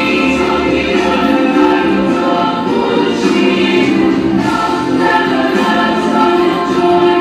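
A choir singing a Christian song in sustained, held notes, the music running steadily.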